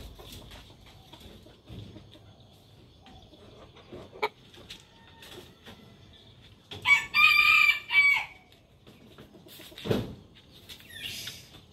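A rooster crows once, about seven seconds in: a loud cock-a-doodle-doo of about a second and a half in several linked parts. A sharp click comes a few seconds before it and a dull thump a couple of seconds after it.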